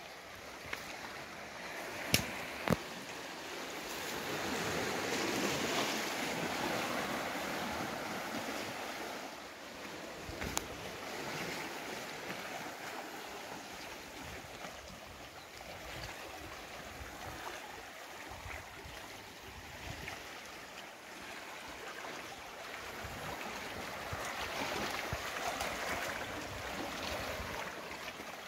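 Small waves washing and lapping among shoreline boulders, swelling twice and easing off. Two sharp knocks a couple of seconds in, and a fainter one later, stand out above the water.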